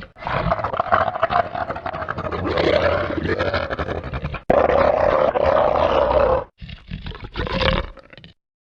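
Ceratosaurus roar sound effect: a long deep roar, then a second roar starting abruptly about four and a half seconds in, followed by a few shorter growls that cut off to silence near the end.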